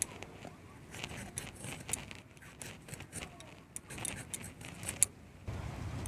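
Hog plums being peeled against the edge of a boti, a fixed curved blade: a run of short irregular scraping clicks and ticks, the sharpest about five seconds in. A low steady rumble comes in near the end.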